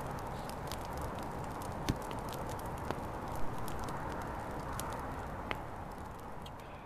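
Small wood campfire crackling: scattered sharp pops over a steady hiss, fading out near the end.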